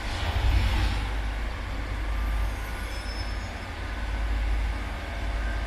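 Railway tamping machine running at work, a steady engine rumble with a hissing mechanical wash above it, a little louder in the first second.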